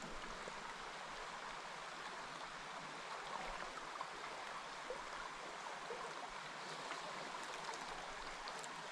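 River water running steadily: an even rush of flowing water.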